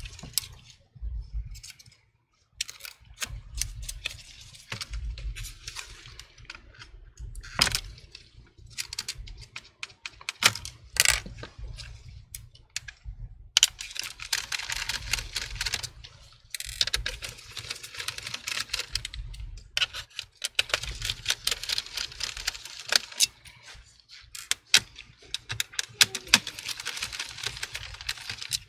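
Small clicks, taps and scraping of hand tools and plastic parts inside an opened laptop while the cooling-fan cable is unplugged and screws around the fan are worked with a small screwdriver. Through the middle the clicking thickens into longer stretches of dense, fine rattling and scraping.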